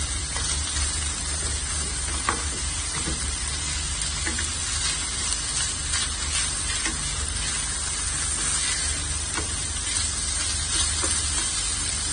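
Salt codfish with softened onions and sweet peppers sizzling in olive oil in a stainless steel sauté pan, stirred with a slotted spoon that scrapes and clicks against the pan now and then.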